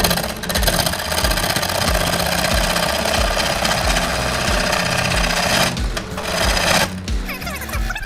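Turning gouge cutting a spinning cherry burl and epoxy resin blank on a wood lathe, a harsh, steady scraping hiss that stops about seven seconds in. Background music with a steady beat plays under it.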